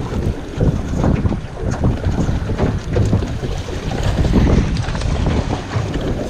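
Wind gusting across the microphone on a small fishing boat, a loud uneven rumble with choppy water around the hull.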